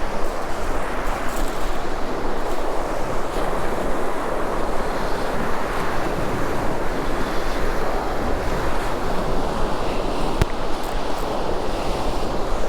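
Steady surf washing onto the beach, with wind on the microphone. A single sharp click about ten seconds in.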